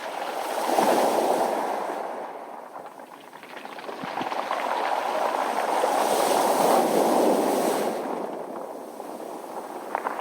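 Sea waves washing onto a rounded-pebble beach, the water surging up and drawing back through the stones with a crackling, rattling hiss. Two surges, the second one longer.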